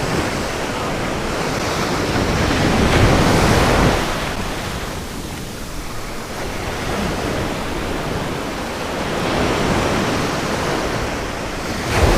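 Surf washing onto a beach, with wind buffeting the microphone in a low rumble. The wash swells twice, a few seconds in and again later on.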